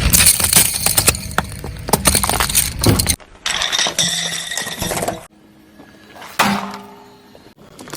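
Crunching, cracking and breaking of objects crushed under a car tyre. The sound comes as several spliced clips: dense crackling cuts off suddenly about three seconds in, and after another cut there is a quieter stretch with one louder crunch near the end.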